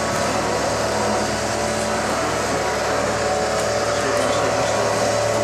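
Steady machine hum with a constant low drone and a higher steady tone, unchanging throughout.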